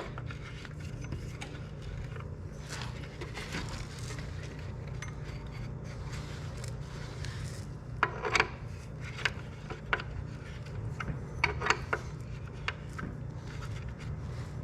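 8mm T-handle wrench turning and snugging steel bolts into a dirt bike swingarm: light metal scraping and rubbing, with scattered sharp clinks of tool on metal, clustered around eight seconds in and again around twelve seconds in.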